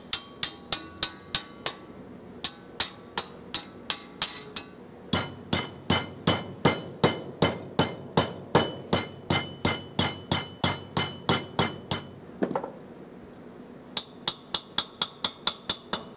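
Hammer striking a strip of sheet metal clamped in a vise, bending it a little at a time toward a 90-degree angle: quick repeated blows, about three a second, each with a metallic ring. The blows stop briefly a few times, the longest pause coming about twelve seconds in before the hammering resumes.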